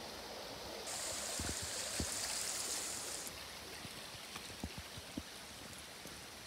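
A shallow woodland stream running over stones, a steady rush that swells for a couple of seconds about a second in and then eases. A few light footsteps on a dirt path tick through it.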